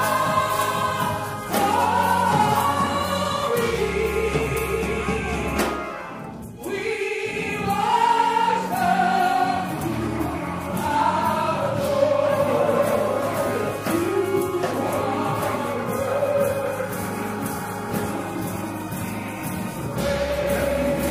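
Gospel choir singing long, held notes with vibrato over Hammond-style organ and keyboard accompaniment with sustained bass notes; the music thins briefly about six seconds in.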